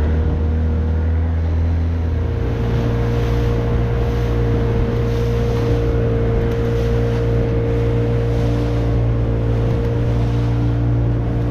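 Vehicle engine running steadily, heard from inside the vehicle, with its pitch changing about two seconds in, like a gear change, then holding even.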